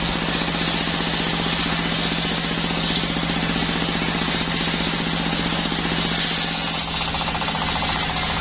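Engine-driven circular saw machine (serkel) running steadily, with a fast, even engine knock under a steady hum.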